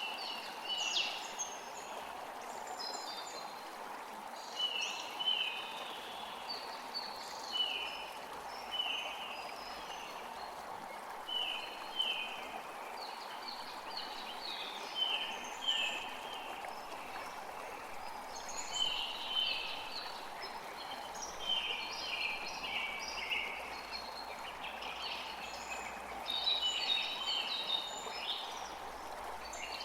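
Forest creek running steadily, with birds chirping in short repeated calls about once a second over the water.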